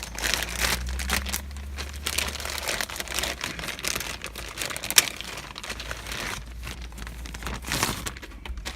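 Plastic packaging crinkling and rustling as a new car stereo is unwrapped and handled, with a sharp click about five seconds in.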